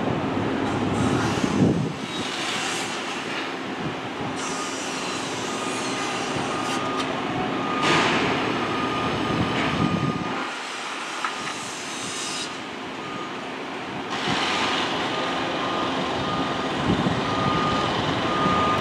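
Steady running noise of a vehicle in motion, swelling and easing every few seconds, with a faint intermittent high tone.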